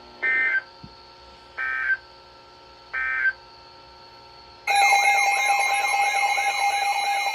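Emergency Alert System end-of-message data tones: three short bursts of digital tones about a second and a half apart, closing the tornado warning. A little over halfway through, a loud continuous alert tone with a warbling edge starts, the attention signal of the next EAS alert.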